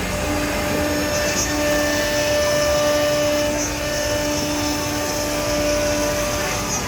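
CNC nesting router for wood panels running: a steady rushing machine noise with a held whine over it.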